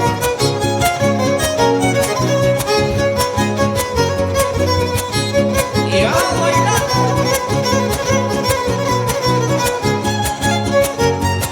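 Son huasteco (huapango) played live: a violin carries the melody over fast, steady strumming from the jarana and huapanguera guitars. One sweeping upward glide is heard about six seconds in.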